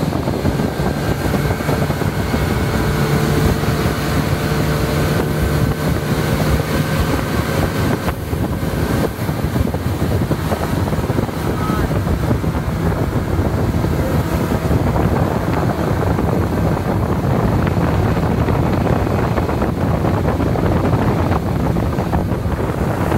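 Speedboat under way, its engine running steadily at speed, with wind buffeting the microphone.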